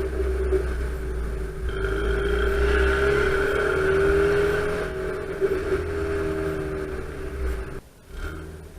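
Fiat Punto's stock 1.2-litre eight-valve four-cylinder engine running under load as the car drives. The hum swells about two seconds in and then eases off, and the sound drops away briefly near the end.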